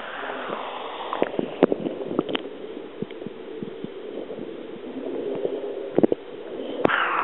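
Muffled underwater sound from a camera microphone dipped in pool water: a dull low hum with many sharp clicks and knocks of water against the camera, bunched a second or two in and again near six seconds. Just before the end a loud knock, and the sound turns bright and splashy as the camera breaks the surface.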